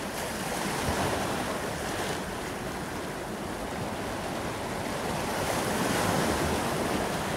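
Ocean surf: a steady rush of waves washing in, growing a little louder near the end.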